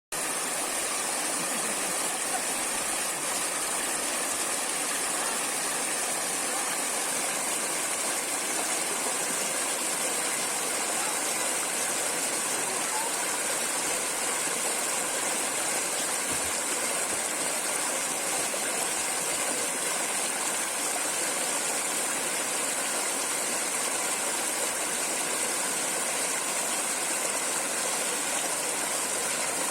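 Flowing water, a steady, even rush that does not change.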